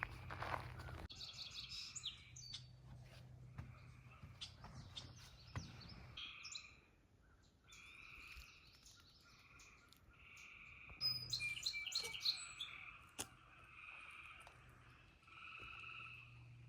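Birds chirping and calling, faint, with a short call repeated about once a second and a few quicker high chirps in between.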